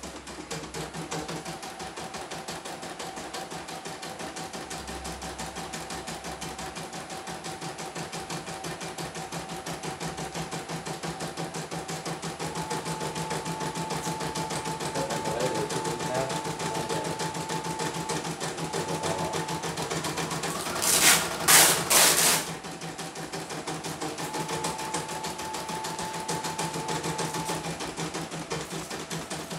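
CNY E900 portable embroidery machine stitching a test design, running again after a dead machine was repaired with replaced parts: a fast, even rhythm of needle strokes over a steady motor whine that shifts up and down in pitch a few times. About two-thirds of the way through, three short loud noises break in over it.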